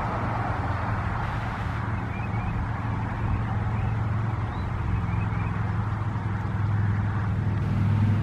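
Steady low vehicle rumble with a hum that swells slightly near the end, and a few short high chirps like small birds.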